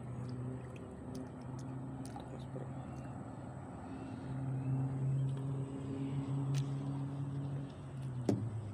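A steady low engine hum that swells a little about halfway through, with a few faint clicks and one sharper knock near the end.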